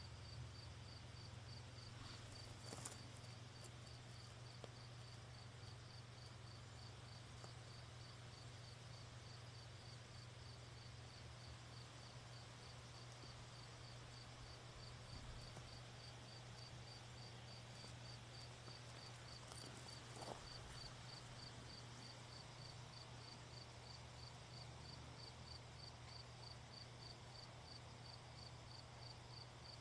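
Near silence: a cricket chirping faintly and evenly a few times a second over a low steady hum.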